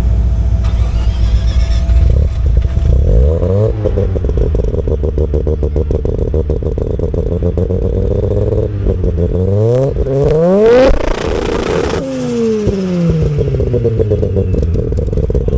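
Car engine running loud and revving: it climbs in pitch a few seconds in, climbs hard again about two-thirds of the way through, then falls back.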